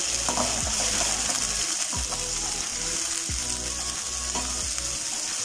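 Sugar-water tempering bubbling and sizzling in an aluminium kadai over oil with mustard seeds, curry leaves and green chillies, cooking down so its water dries off. A steel slotted spoon stirs it and knocks against the pan a few times.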